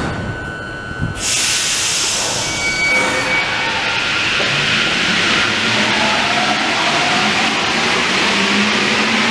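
Driverless MP 05 metro train pulling out of an underground station. A sudden hiss of air starts about a second in and a brief tone sounds, then the traction motors' whine rises in pitch as the train accelerates away.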